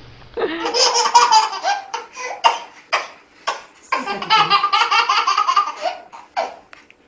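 A baby laughing hard in two long fits of rapid, high-pitched laughter, with a few short single laughs between them and one near the end.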